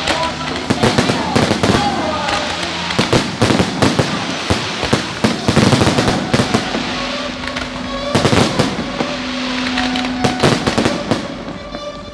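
Fireworks display: many shells bursting in quick succession, a dense run of bangs with no let-up.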